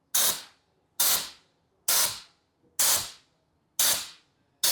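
Compressed-air blow gun fired in short, even blasts of hiss, about one a second, blowing blasting sand out of bolt threads.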